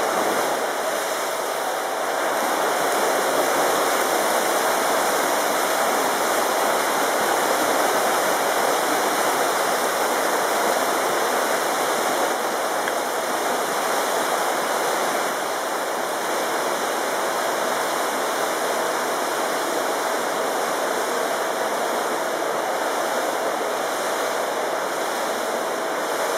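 Steady rushing wash of water from swimmers splashing through a freestyle race.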